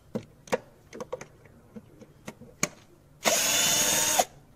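Cordless drill/driver running for about a second near the end, after a few sharp clicks.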